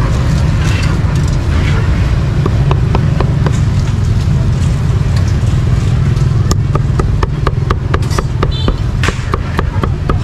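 Cleaver chopping roast meat on a chopping block: a quick run of sharp knocks starting a couple of seconds in and coming fastest near the end, over a steady low rumble of street noise.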